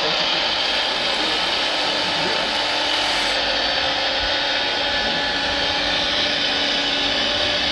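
Steady mechanical whirring and grinding of radio-controlled scale construction models at work, from their small electric motors, gearboxes and hydraulic pumps.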